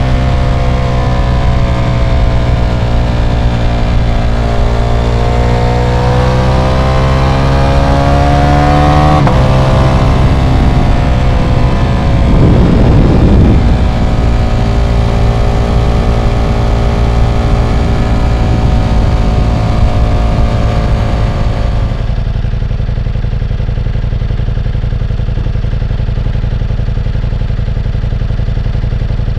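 Ducati Diavel V4 motorcycle's V4 engine running. Its pitch climbs slightly and then drops about nine seconds in, and there is a louder surge around twelve to fourteen seconds. From about twenty-two seconds in it settles to a steadier, duller sound.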